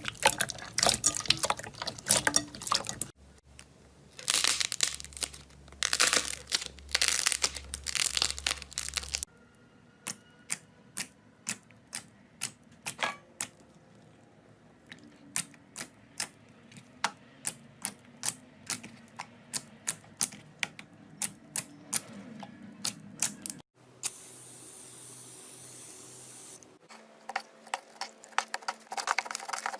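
Slime being squeezed and pressed by hand: wet crackling and squelching, then a long run of separate sharp pops about two a second, a brief steady hiss, and crackling again near the end.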